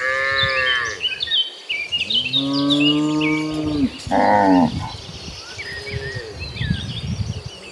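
Cattle mooing: a higher-pitched moo at the start, a long low moo about two to four seconds in, and a shorter one just after, with birds chirping in the background.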